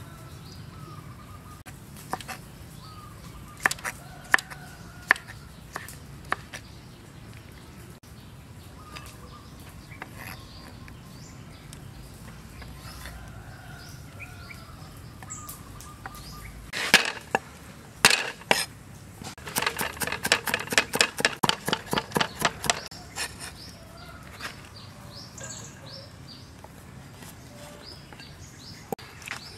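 Kitchen knife striking a wooden chopping board: scattered single knocks while fruit is sliced, then, a little past halfway, a quick run of chops at about six a second for some three seconds. Birds chirp faintly in the background.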